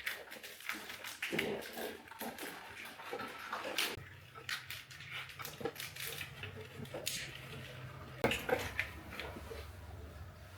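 Handling noise from bundling a wiring harness: irregular crackles and clicks of wires and plastic split loom being pushed together and routed. A low steady hum comes in about four seconds in.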